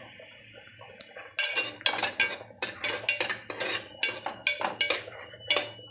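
Steel ladle scraping and clinking against the bottom of an aluminium pressure cooker, stirring raisins frying in ghee. A quick run of short strokes, about three a second, starts about a second and a half in.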